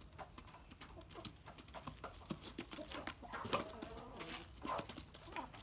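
Chickens clucking while they peck grain from a plastic feeding basin, with quick, irregular beak taps on the plastic and a few louder clucks about three to five seconds in.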